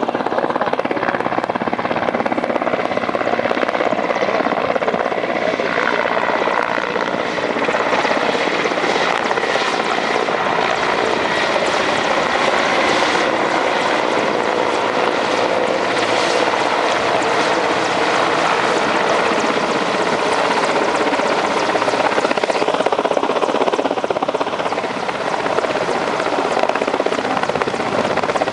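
Helicopter running steadily, its rotor and engine noise loud and continuous throughout.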